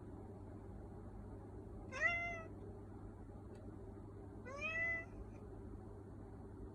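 A domestic cat meowing twice, about two and a half seconds apart; each meow is short and rises in pitch at the start.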